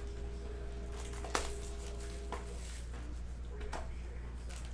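Cardboard trading-card hobby box being handled and its lid opened: a sharp tap about a second and a half in, then a few soft clicks and scrapes over a steady low hum.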